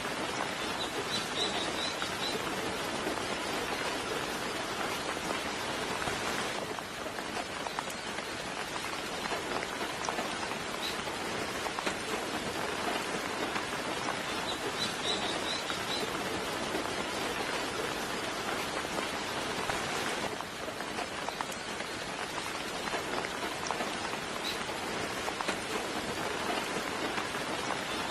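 Steady, gentle rain falling, with short high bird chirps a few times in small clusters.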